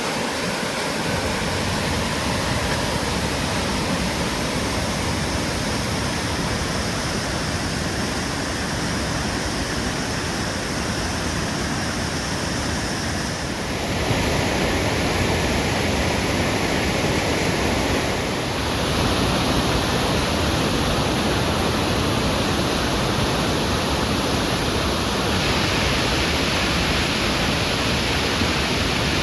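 Waterfall rushing: a loud, steady roar of falling water whose tone shifts abruptly three times as the recording jumps between spots.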